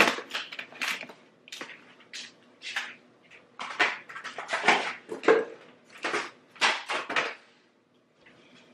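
Plastic grocery packaging and bags being handled: a run of irregular crinkles, rustles and light knocks, dying down near the end.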